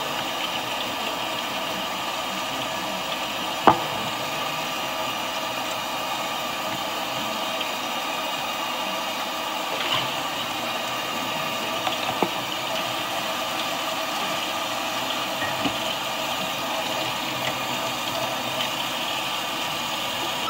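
Steady mechanical hum with several held tones, with a few light clicks or knocks, the sharpest about four seconds in.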